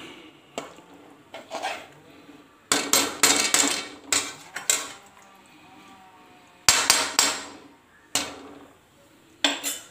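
Metal ladle scraping and knocking against the side of a large metal cooking pot as thick curry gravy is stirred, in irregular clattering strokes. The loudest come in a burst about three seconds in and another about seven seconds in, with the pot ringing briefly after them.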